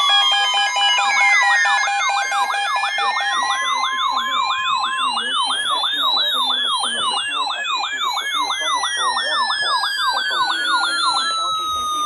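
Several weather alert radios sounding their alarms at once: a fast repeating warble, long tones sweeping down and up, a short steady alert tone and pulsed beeps. This is the radios alarming for an incoming weather warning. The warble stops a little before the end, leaving one falling sweep.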